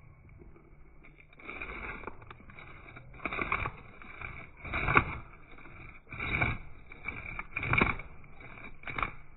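Australian salmon being scaled by hand: about six scraping strokes over the scales, roughly one every one and a half seconds, the loudest about five seconds in.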